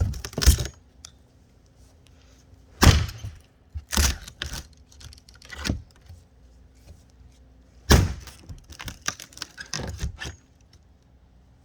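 Wooden sign being struck and pried apart: a series of sharp knocks and cracking sounds at irregular intervals, with lighter clattering of nails and wood between them.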